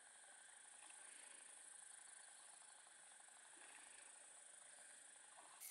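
Near silence, with a faint, steady high-pitched drone of insects such as crickets.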